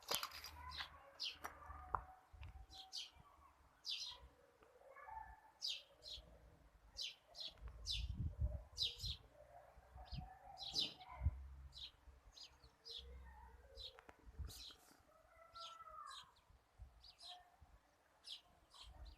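A small bird chirping over and over in short, high chirps, about one or two a second, over low irregular thuds.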